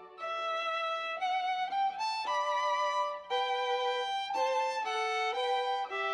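Background music: a violin playing a slow melody of held notes with vibrato, the notes changing about every half second to a second.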